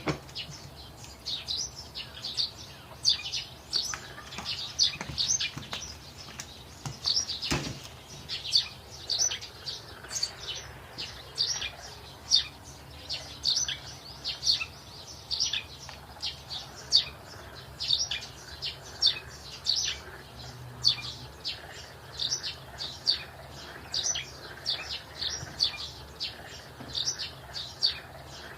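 A small bird chirping over and over in short, high chirps, about two a second at an uneven pace. A single sharp knock sounds about a quarter of the way in.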